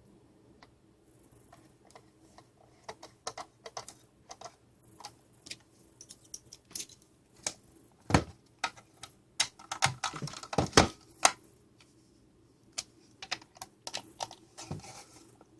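Plastic housing parts of a range extender being handled and fitted back together: irregular clicks and taps, with a busier run of louder knocks about eight to eleven seconds in.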